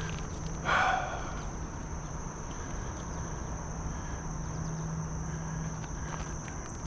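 Steady high-pitched insect chirring, with a faint low hum underneath and a brief louder sound about a second in.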